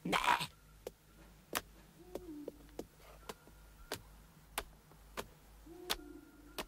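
A short hiss, then a run of soft, evenly spaced ticks, about three every two seconds, like cartoon tiptoe steps, with two brief low tones between them.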